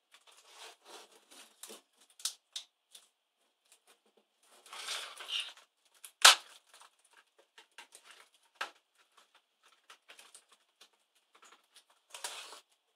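Scattered plastic clicks, taps and scrapes from an Asus K55VJ laptop's case and keyboard being handled and pressed while the keyboard is worked loose from its screws and plastic clips. There is one sharp, loud knock about six seconds in.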